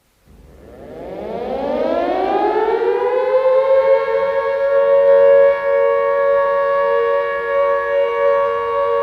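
Civil defense warning siren winding up from silence, its pitch rising over about three seconds and then holding steady on two close tones sounding together.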